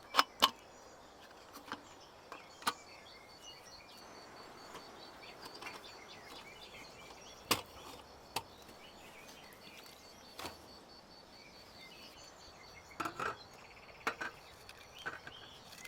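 Scattered light knocks and clicks of camp gear being handled, over quiet forest ambience with a faint, high-pitched, rapid pulsing chirp through the middle stretch.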